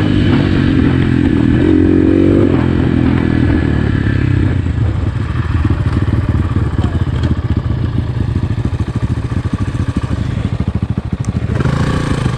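2021.5 GPX FSE 250 E dual-sport dirt bike's 250 cc single-cylinder engine running under way. It is held at high revs for the first few seconds, then drops to lower revs with a choppy, pulsing note, and the revs climb again near the end.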